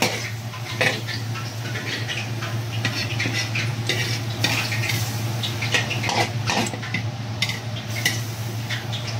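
Squid and vegetables sizzling and simmering with a little broth in a wok, with a metal ladle scraping and clinking against the wok every so often. A steady low hum runs underneath.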